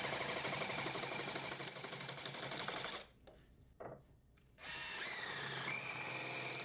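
A power drill spins a wooden dowel blank against the steel jaws of a bench vise, which scrape it round. It is a steady whine that stops about three seconds in, with one short knock as the vise is adjusted, then starts again and climbs slightly in pitch.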